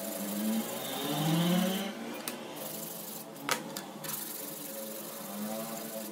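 A flat metal strip rubbed back and forth by hand on emery cloth over a steel plate, a repeated scraping, with a few sharp taps near the middle.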